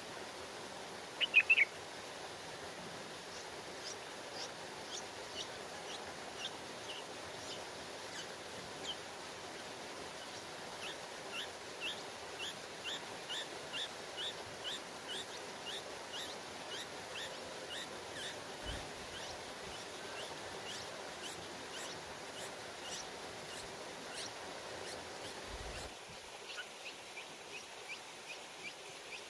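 Bulbul nestlings begging: short, high, falling peeps repeated two to three times a second, over a steady hiss. A brief louder call comes about a second in.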